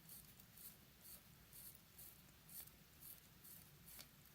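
Faint scratchy clicks, about two a second, of a Yema Heritage mechanical watch's crown being turned by hand to wind it.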